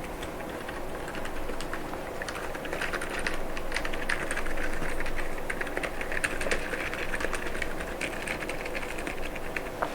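Rapid keystrokes on an Akko MU01 mechanical keyboard with Gazzew Boba U4 silent tactile switches and PBT keycaps: a dense run of short clicks that gets busier and louder a couple of seconds in and thins out just before the end.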